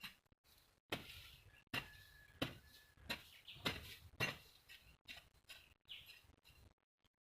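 A hand hoe (jembe) striking into soil while digging planting holes: a run of short dull strikes, about one every two-thirds of a second, weaker toward the end. A faint bird chirp is heard once between strikes.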